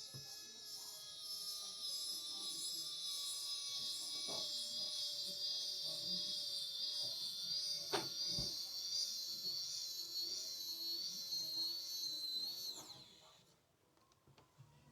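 ANVANNA battery-powered precision electric screwdriver running, driving a hex bolt back in: a small motor's high, steady whine with a couple of clicks about four and eight seconds in. It winds down with a falling pitch and stops about thirteen seconds in.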